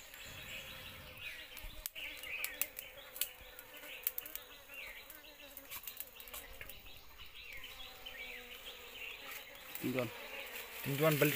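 Bees buzzing steadily inside a hollow in a cut tree trunk, with scattered light clicks and rustles of wood chips as a hand reaches into the cavity.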